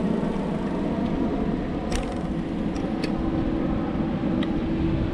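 Wind rushing over a bike-mounted camera's microphone and city street traffic while cycling, with a steady hum and a few light clicks.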